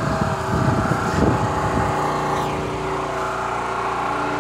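An engine running steadily, a constant hum at an unchanging pitch.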